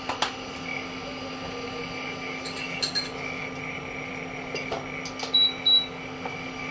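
Havells induction cooktop running with a steady electrical hum and a thin high whine, heating oil in a pan. Near the end, two short high beeps from its touch buttons being pressed.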